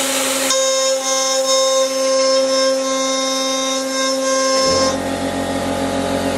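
CNC router spindle whining steadily as its end mill cuts 20 mm aluminium plate, with a brief hiss right at the start. At about four and a half seconds in, the tone of the cut changes and a lower hum joins in.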